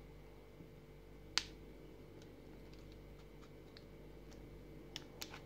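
Small scissors snipping and prying at the clear plastic blister pack of a microSD card: a few sparse, sharp clicks. The loudest comes about a second and a half in, and a small cluster follows near the end.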